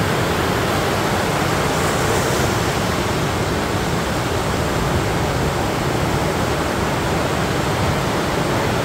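Sea surf: waves breaking and washing up the sand, a steady unbroken rush of water noise.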